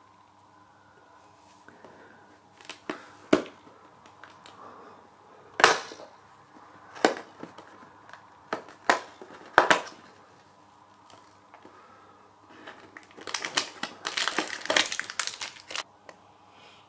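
A cardboard advent calendar door is pushed in and torn open along its perforations, giving a series of sharp cardboard snaps and pops. Near the end comes a dense crackling rustle as the small plastic-wrapped bag of gummy sweets is drawn out.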